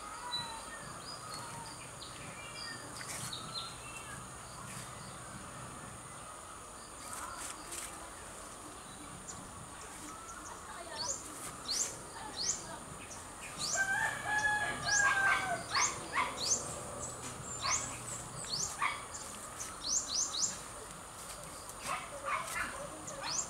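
Rooster crowing once, about two-thirds of the way in, a held call that falls away at the end, over short high chirps of small birds and a steady high drone of insects.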